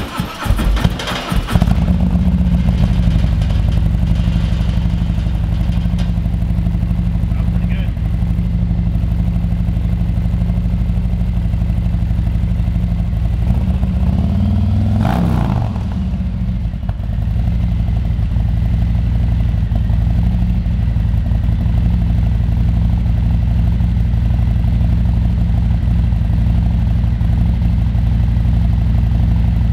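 Harley-Davidson Screamin' Eagle 131 Stage 4 crate engine, a 131-cubic-inch Milwaukee-Eight V-twin, firing up for the first time after its install and settling into a steady idle within about two seconds. About halfway through, the engine speed briefly rises and falls once before it returns to idle.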